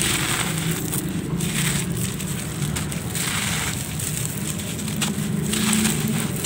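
Hands crushing lumps of dry red soil and letting the crumbs and powder fall back onto the heap: a dry, gritty rustle that swells and eases about four times.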